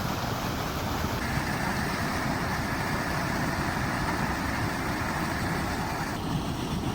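Steady rushing roar of flash-flood water pouring down into the lake, with a constant low rumble underneath.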